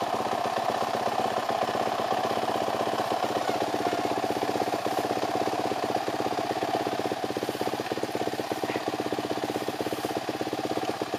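Dirt bike engine idling steadily, with an even, rapid firing beat.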